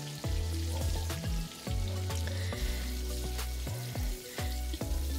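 Masala-marinated fish steaks sizzling as they shallow-fry in oil on a low flame, under background music with held bass notes and chords.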